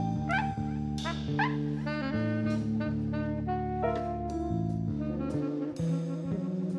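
Small jazz band playing free, experimental jazz: saxophone and trumpet lines and struck piano notes over held bass notes.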